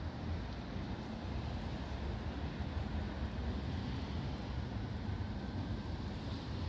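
Steady low outdoor rumble of city ambience during a snowfall, an even noise with no distinct events.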